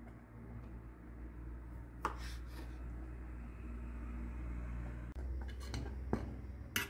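Kitchenware being handled: a few sharp clinks and knocks, about two seconds in and twice near the end, over a steady low hum.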